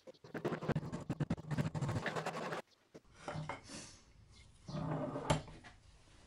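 Home-made kerfing plane cutting along the edge of a wooden board: a fast, dense rasp of saw teeth in wood. After a cut, wooden pieces rub and scrape together, with a sharp knock about five seconds in.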